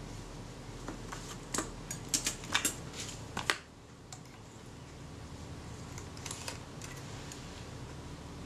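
Light clicks and taps from hands handling a Kodak Retina IIIS camera body and its parts: a quick cluster of clicks in the first few seconds, then a few fainter ones later.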